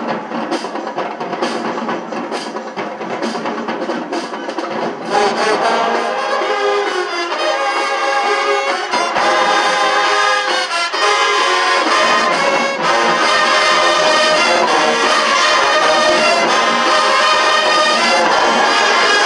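Large marching band playing, brass to the fore, with trumpets and trombones over drums. The sound swells louder and fuller about five seconds in.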